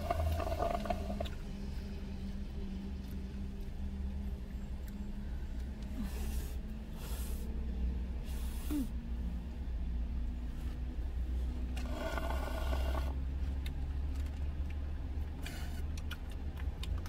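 Steady low hum inside a car cabin, with a few short rustles and eating noises from food being handled and chewed.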